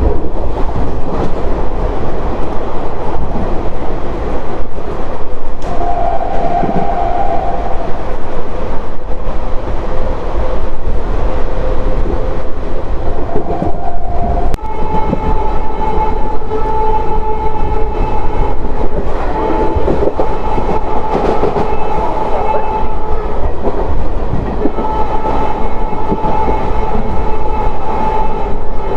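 Passenger train running at speed, heard from the open door of an old ICF coach: steady wheel and track rumble with clacking over rail joints. Two brief horn notes come early on, and from about halfway on the WAP7 electric locomotive's twin horn sounds in long blasts with short breaks.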